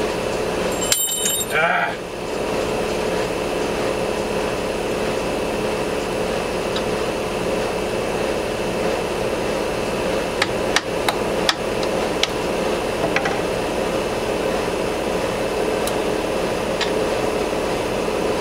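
Steady motor hum from the workshop machinery. A short squeak comes about a second and a half in, and a few sharp metal clicks come between about ten and thirteen seconds in as a hex key is worked in the chuck backing plate's socket-head screws.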